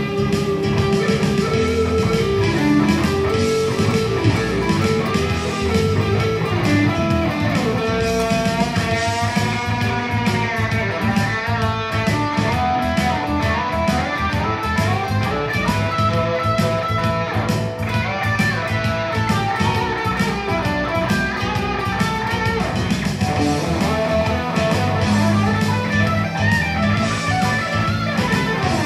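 Gold-top Les Paul-style electric guitar playing an improvised lead, single-note lines with bent notes and vibrato over sustained low notes.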